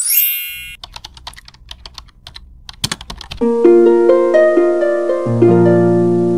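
Title-card sound effects and music: a bright ringing chime, then a run of irregular keyboard-typing clicks over a low hum, then a plucked, harp-like melody that comes in about three and a half seconds in, with a bass line joining near the end.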